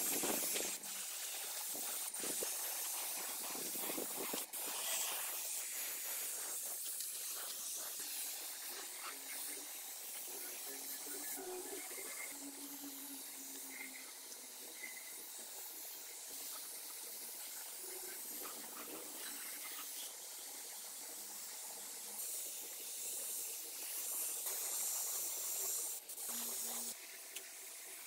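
Compressed-air paint spray gun hissing steadily as it sprays paint, with a few brief breaks where the trigger is let off.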